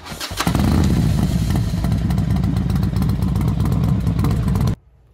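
Motorcycle engine running loud with a rapid, even exhaust pulse. It builds quickly about half a second in, holds, and cuts off abruptly near the end.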